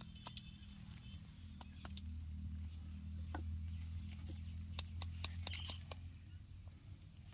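Kitchen knife cutting through crisp banana peppers held in the hand: a string of sharp, irregular snaps and clicks over a low steady rumble.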